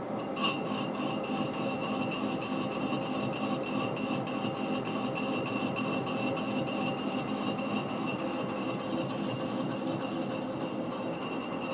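A Monarch engine lathe running at low speed, turning a long steel pipe in a steady rest while the tool faces the pipe's end. A steady high whine joins the machine's running noise about half a second in and holds steady.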